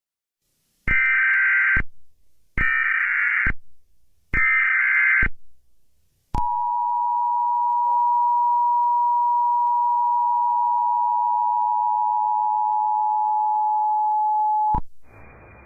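Emergency Alert System broadcast tones: three short bursts of SAME header data, then the steady two-tone EAS attention signal held for about eight seconds, which cuts off abruptly into a faint hiss. This is the start of an emergency alert, here a shelter-in-place warning.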